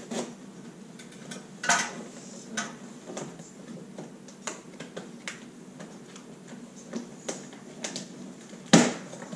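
A sealed cardboard box being cut open and handled with scissors on a glass-topped table: scattered clicks, taps and scrapes of cardboard and tape, with a short rasping burst early on and one sharp knock near the end.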